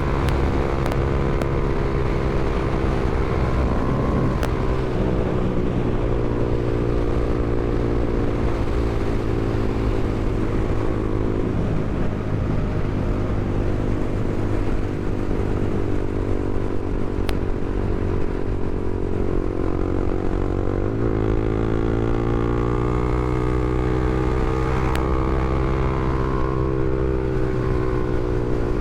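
Honda CBR300R's single-cylinder engine running steadily, its note dipping slightly a few seconds in and then climbing in pitch as revs rise about three quarters of the way through.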